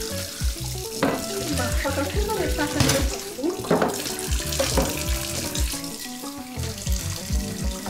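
Tap water running into a sink while a plate is scrubbed with a sponge, under background music with a steady beat.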